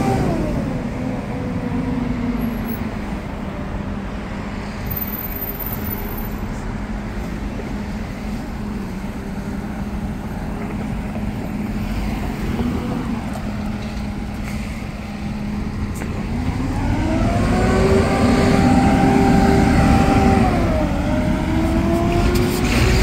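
City street traffic as an articulated Mercedes-Benz city bus pulls away and drives off: engine tones fall in the first two seconds, then a steady low hum and passing cars. In the last few seconds a nearby vehicle accelerates, its engine note rising, dropping at a gear change and rising again.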